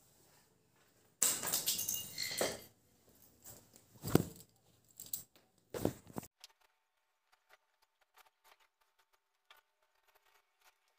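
Rustling and handling noise from clothes and the phone being handled, with a knock about four seconds in and another near six seconds, then near silence with only faint ticks.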